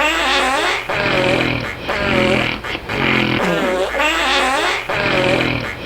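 Loud fart-like snoring, about one breath cycle every two seconds, repeating three times: a low, flat buzzing rattle alternates with a higher, wavering flutter.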